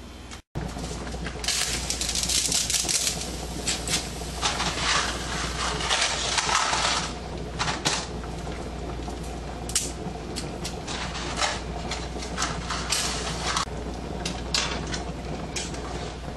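Dry spaghetti snapped and dropped into a saucepan of boiling water, then stirred with a fork. It is a run of crackling, hissing noise broken by many sharp clicks, after a brief dropout about half a second in.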